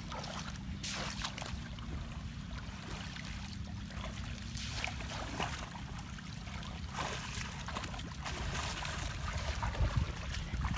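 Shallow muddy water splashing and sloshing in repeated bursts as a woven bamboo fishing basket is scooped through it and legs wade, over a steady low rumble.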